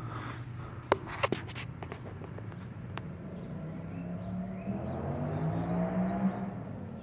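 A pigeon pecking at its food, with a few sharp clicks about a second in. From about midway a low hum, likely a passing engine, rises in pitch and grows louder before falling away, with faint bird chirps over it.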